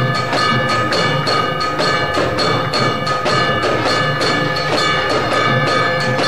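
Temple aarti percussion: bells and drums struck at a rapid, even beat over a continuous metallic ringing.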